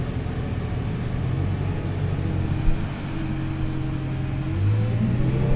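Wheel loader's diesel engine running steadily, heard from inside the cab, with a rise in engine pitch about four and a half seconds in as it picks up revs.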